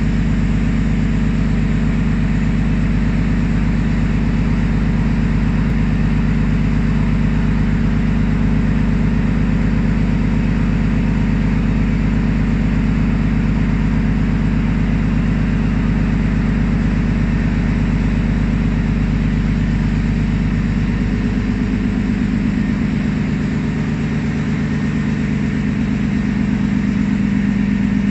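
Steady, loud, engine-like drone of heavy machinery running at a gold leaching plant, with a deep hum; its tone changes slightly a little over 20 seconds in.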